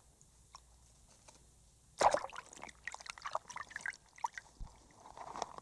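Faint splashing and sloshing of water in a hole cut through the ice. It is near quiet at first, then a run of short irregular splashes and clicks starts about two seconds in and comes back near the end.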